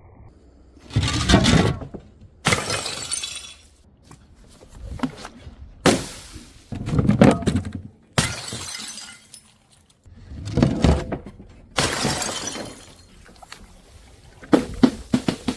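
Glass bottles hitting hard stairs and shattering, several times in a row. Each strike is a heavy thud followed by a bright crash of breaking, scattering glass, with smaller clinks of shards in between and near the end.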